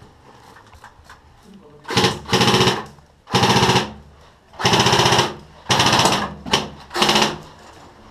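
Airsoft gun firing full-auto in about six short bursts of roughly half a second each, close and loud, a rapid buzzing rattle of shots. The bursts start about two seconds in and stop just before the end.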